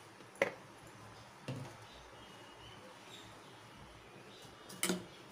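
Faint steady hiss with three short clicks and knocks: a sharp click about half a second in, a duller knock about a second and a half in, and another click near the end.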